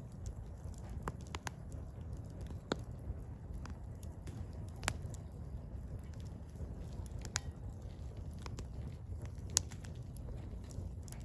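Burning firewood crackling, with scattered sharp pops every second or two over a low steady rumble; the loudest pop comes about nine and a half seconds in.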